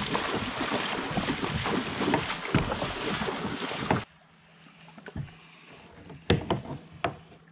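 Water splashing around a person's legs as he wades through a shallow creek towing a kayak, with wind on the microphone. About four seconds in it cuts off abruptly, leaving a quiet background with a few scattered clicks and knocks.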